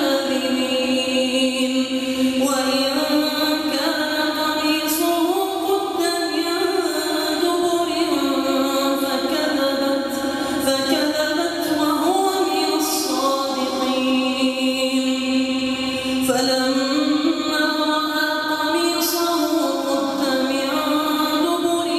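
A solo voice reciting the Quran in a melodic chanting style (tajweed), drawing out long held notes that slide slowly up and down in pitch, with hardly a break.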